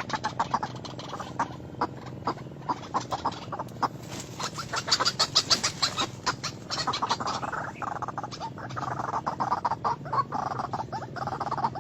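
White-breasted waterhen calling: a fast series of sharp repeated notes, turning into a denser run of croaking calls about halfway through.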